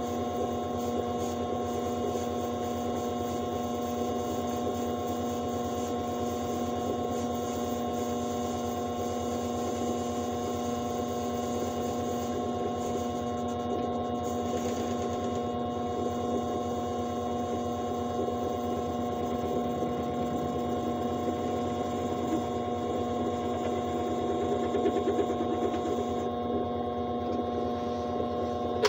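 Vevor mini metal lathe running steadily, its motor and gear drive giving a constant whine while the cutting tool turns down a small nitro-engine cylinder sleeve. The motor stops abruptly at the very end.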